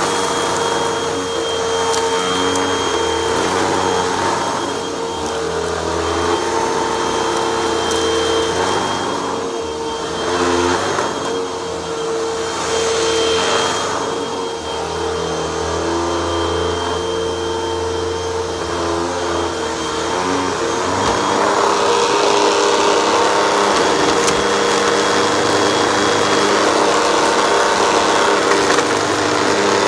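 Hoover WindTunnel upright vacuum cleaner running with a steady motor hum and high whine, its brushroll sucking up a pile of lint and dirt from carpet. The pitch and level shift as the head is pushed back and forth, and the rushing suction grows louder about two-thirds of the way through.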